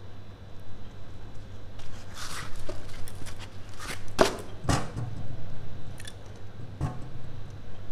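A few sharp clicks and knocks, with a rustle before them, as the motorcycle's front wheel is turned by hand, over a steady low hum.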